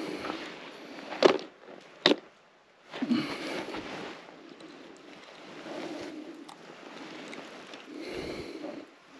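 Handling noise while a just-caught pike is landed and dealt with: steady rustling, two sharp knocks about a second and two seconds in, then a short louder burst of rustling around three seconds in.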